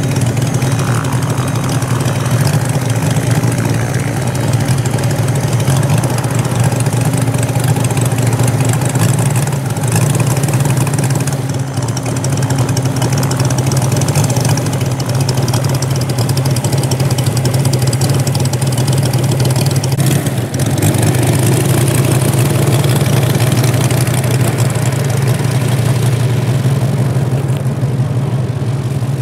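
Gasoline radial engine of a quarter-scale RC Corsair model (MOKI 250cc) idling steadily on the ground, getting a little louder about two-thirds of the way through.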